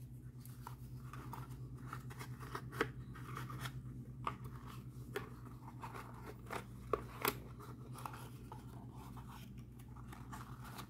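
A small cardboard Matchbox 75 Superfast toy box is handled as a die-cast model tank is slid into it and the box is closed: the card scrapes and rustles, with a scatter of sharp clicks and taps. The loudest click comes about a quarter of the way in, and a quick pair comes about two thirds of the way in. A steady low hum runs underneath.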